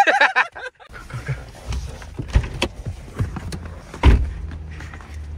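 Car door and handling knocks over a low rumble, with one loud thud about four seconds in, as people move out of a car.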